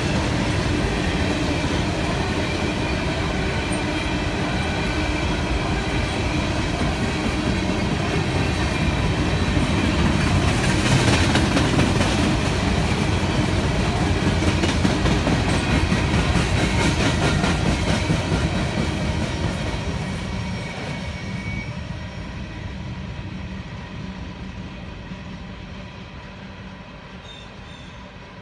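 Freight train of coal hopper cars rolling past, a steady rumble and clickety-clack of steel wheels on rail with a faint steady whine. It fades away over the last ten seconds or so as the final cars pass.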